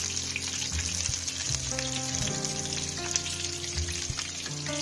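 Hot oil sizzling with a steady fine crackle as frozen snacks fry: patties shallow-frying in a nonstick pan and pastry rolls in deeper oil in a steel kadai.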